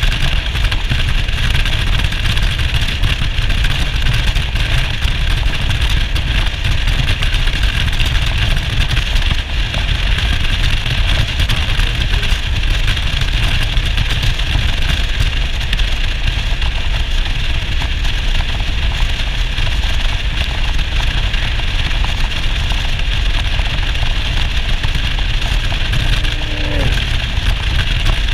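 Yamaha SR400's single-cylinder four-stroke engine running steadily on the move, under a steady rushing noise.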